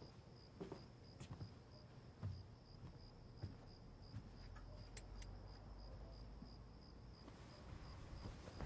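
Quiet night-time room tone with a cricket chirping steadily at an even pace, plus a few soft knocks and rustles in the first few seconds.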